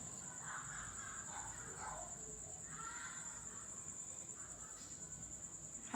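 A faint, steady high-pitched tone with a slight pulse, under a few faint, muffled pitched sounds.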